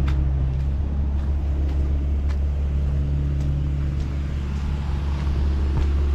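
An engine running steadily close by, a constant low hum, with faint footsteps on gravel about two a second.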